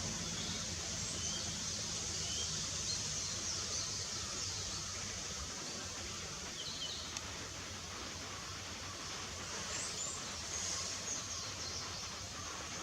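Faint, short, high bird chirps heard now and then over a steady hiss, several close together around ten seconds in.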